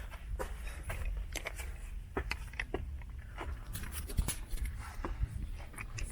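Irregular footsteps and scuffs on a rocky trail, with sharp clicks and scrapes over a steady low rumble.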